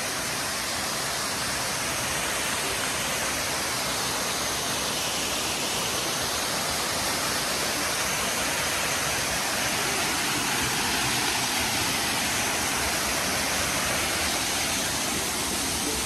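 Houston Brook waterfall cascading over rock ledges into a pool: a steady, even rush of falling water.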